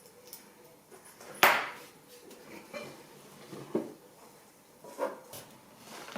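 Knocks and clatter of a desktop PC case being turned over and set down, with one loud thump about a second and a half in, followed by a few smaller knocks and clicks.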